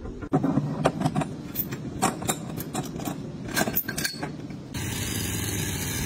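Heavy steel pulling chains clanking and jangling as they are handled on a frame-straightening bench's pulling tower, in a quick run of sharp metallic clinks. Near the end the clanking gives way abruptly to a steady mechanical hum.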